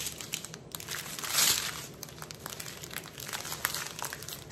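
Strips of small clear plastic bags of diamond painting drills crinkling and rustling as they are shuffled about by hand, with a louder rustle about a second and a half in.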